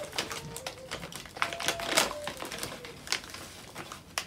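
Potato chip bag rustling and barbecue potato chips being crunched, a run of irregular sharp clicks and crackles.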